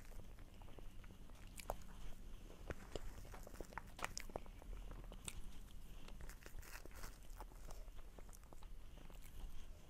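Eating sounds from spooning and chewing a soft cream-and-strawberry cup dessert: quiet wet mouth sounds, with scattered sharp clicks from the metal spoon and the plastic cup.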